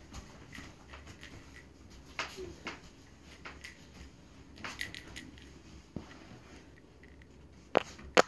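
Faint scattered clicks and light knocks of small objects being handled, with a few sharper clicks near the end.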